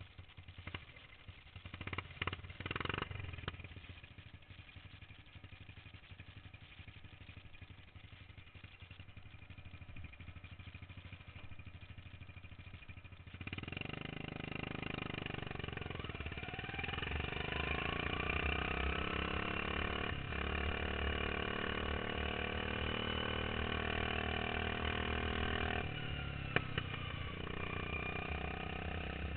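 Modified racing lawn mower engine running low and quiet, then a little under halfway through the engine noise jumps up sharply and its pitch climbs as the mower accelerates hard, staying loud at speed.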